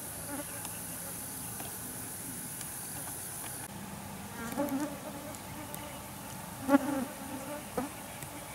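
Insects buzzing and chirring steadily, with a high-pitched layer that cuts off about a third of the way in. A few short pitched calls break through about halfway and near the end.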